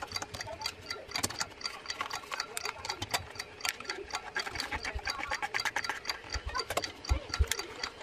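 A quick, dense run of small clicks and ticks from a Yashica D twin-lens reflex camera being loaded with 120 roll film by hand, with a few soft thumps near the end as the camera is handled.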